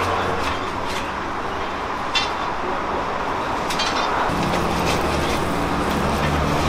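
Steady ambience with a low hum, like traffic from the street, and a brief click about two seconds in.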